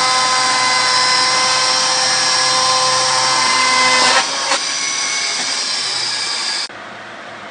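Snik mill's 10 hp electric chainsaw cutting through a pine log, a steady high whine of motor and chain. About four seconds in there are two knocks and it runs on lighter, as the bar comes out of the cut, and near the end the sound drops suddenly to a quieter hum.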